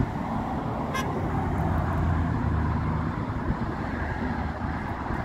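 Road traffic on a highway bridge: a steady tyre-and-engine rumble that swells as a vehicle passes about two seconds in. A brief high click sounds about a second in.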